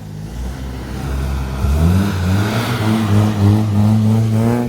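Car engine revving: it climbs in pitch a little over a second and a half in, holds at high revs, and drops back near the end.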